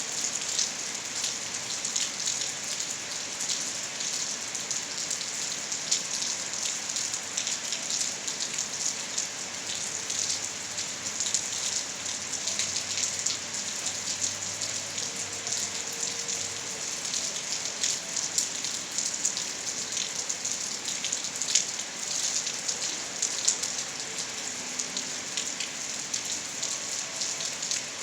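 Steady rain falling and pattering on surfaces, with many close individual drop impacts over an even hiss.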